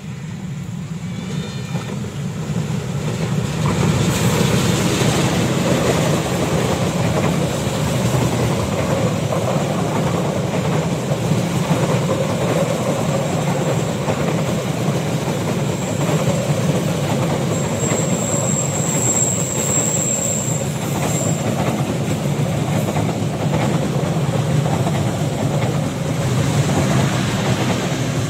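Diesel-hauled Argo Dwipangga passenger train passing close by: its rumble grows over the first few seconds as the locomotive nears, then holds steady as the carriages roll past with wheels clattering over the rail joints. A high wheel squeal sounds for a few seconds about two-thirds of the way through.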